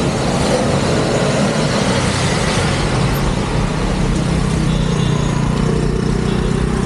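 Steady city road traffic: motor vehicle engines and rumble, with a steady low engine hum settling in about halfway through.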